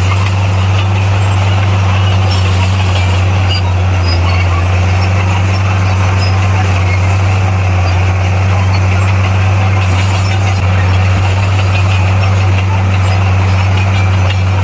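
Bulldozer's heavy diesel engine running at a steady speed, a constant low drone with no change in pitch.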